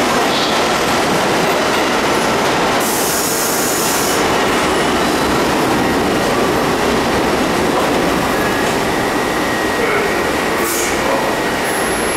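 Bombardier-built R62A subway train pulling into the station and braking to a stop at the platform, with a burst of hiss about three seconds in.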